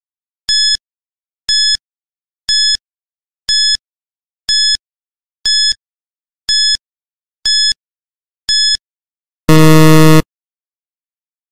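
Quiz countdown timer sound effect: short high beeps about once a second, nine in a row, then a loud low buzzer lasting under a second about nine and a half seconds in, marking time up.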